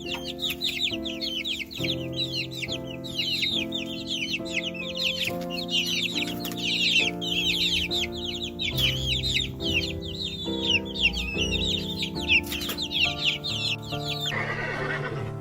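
Many birds calling at once in rapid, overlapping high chirps over soft piano music. The calls stop about a second before the end and a steady hiss comes in.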